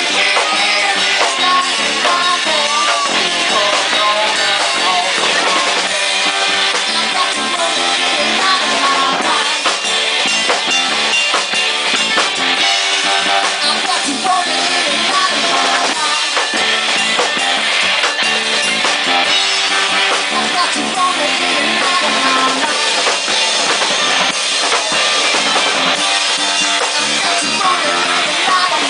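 Rock-funk jam band playing live: a drum kit keeps a steady beat under guitar lines, dense and continuous, with little deep bass.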